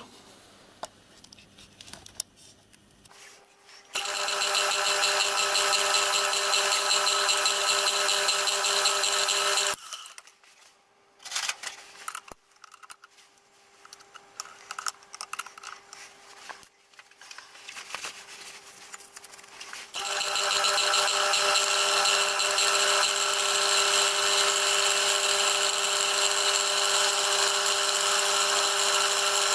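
Milling machine spindle running with a twist drill cutting holes in a metal cylinder cover, a steady machine sound with several even tones. It stops about ten seconds in, leaving scattered clicks and knocks, and starts again about twenty seconds in.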